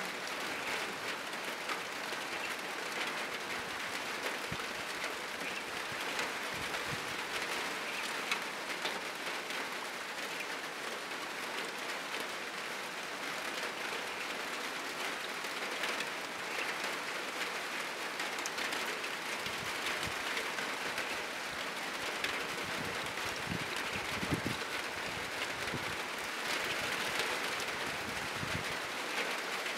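Heavy rain falling steadily on a roof, a dense even hiss with scattered louder drops.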